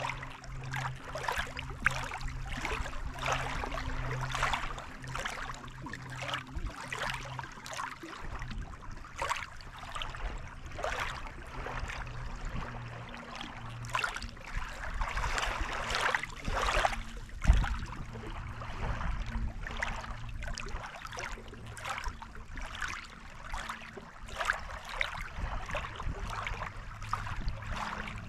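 Small lake waves lapping and splashing at the shore in irregular washes, over a steady low hum. A single thump about seventeen seconds in.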